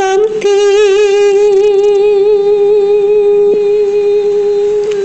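A woman singing unaccompanied. After a brief note she holds one long sustained note with a slight vibrato for about four and a half seconds.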